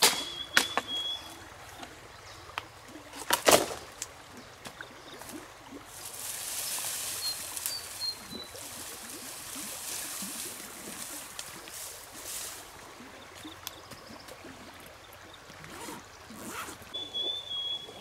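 Water trickling and splashing, with scattered sharp knocks and clicks; a close pair of knocks about three and a half seconds in is the loudest. A brief high whistle sounds near the start and again near the end.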